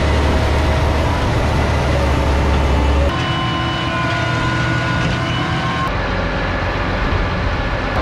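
Steady noise of heavy farm machinery running: a tractor pulling a grain cart alongside a combine harvesting corn. The sound changes abruptly about three and six seconds in.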